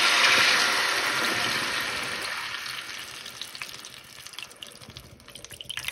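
Water poured from a jug into a hot pan of browned sausages in olive oil: the hot fat sizzles and hisses as the water hits it, then the hiss fades away over about four seconds as the pan fills and cools, leaving the trickle of the pour.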